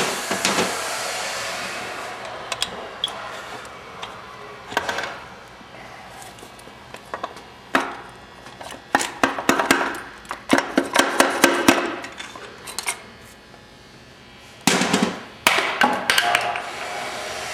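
Metal engine parts and tools clinking and tapping while connecting rod caps and bearings are handled on a bare 4G63 short block. There are scattered sharp clicks at first, then a rapid flurry of them midway, and a louder burst near the end.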